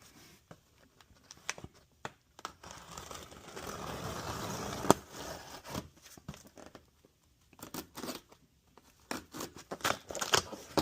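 Shipping packaging being torn open and crinkled, a rough rustling stretch that ends in a sharp snap about five seconds in, followed by scattered clicks and knocks as the contents are handled.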